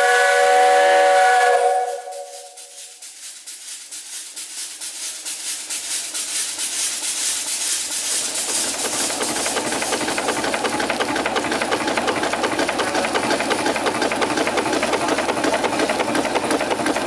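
Steam whistle of a 1908 Richard Garrett & Sons steam traction engine blowing a loud chord for about two seconds and cutting off. The engine then runs, its rhythmic exhaust beats and valve-gear clatter quickening and growing louder until it settles at a steady fast rhythm.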